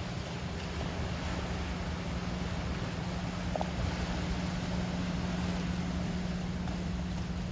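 Steady low drone of a boat engine out on the water, over a constant wash of sea waves and wind.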